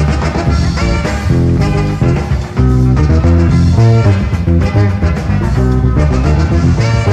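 Live jazz-fusion band playing, with electric bass prominent in a dense ensemble groove.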